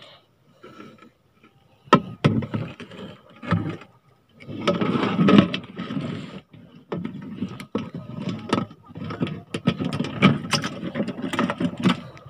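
Close handling noise of fishing gear: irregular sharp clicks and knocks, with rustling in between, as the rod, reel and line are moved about.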